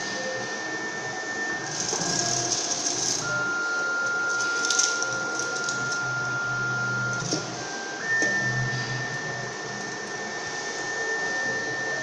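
Rotary cable-stripping machine running: its motor whines in a steady high tone that steps down and back up in pitch as the rotating blade head works around the cable jacket, over a low hum, with short hisses about two and five seconds in.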